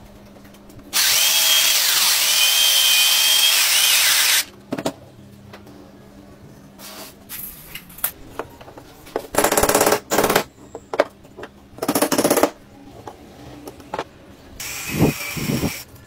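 A power tool working on wooden strips: one loud run of about three and a half seconds, then several shorter bursts around the middle and near the end, with light knocks of wood being handled in between.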